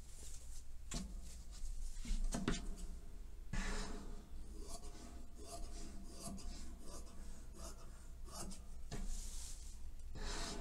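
Thin lining fabric being handled and smoothed on a cutting mat, then tailor's shears cutting through it in a series of irregular snipping strokes.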